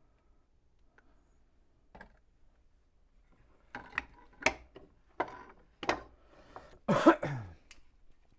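A man coughing and clearing his throat: a run of about six short coughs starting about three and a half seconds in, ending in a longer throat-clearing sound with a falling pitch.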